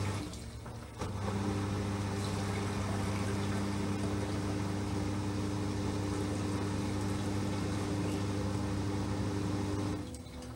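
LG 6.5 kg washing machine's motor running steadily as it turns the load, with a short pause about a second in and another near the end, the stop-and-go of the drum changing direction.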